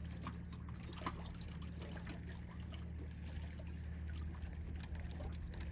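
Small waves lapping and splashing against a dock, in scattered soft slaps over a steady low hum.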